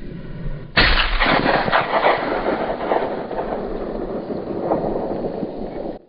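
Hunting rifle shot about three quarters of a second in, followed by a long rolling echo that carries on for several seconds before cutting off.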